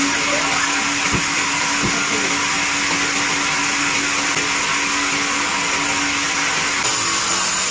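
Band sawmill running steadily with a constant motor hum and high hiss while the log is set on the carriage, not yet cutting. Two dull knocks about one and two seconds in.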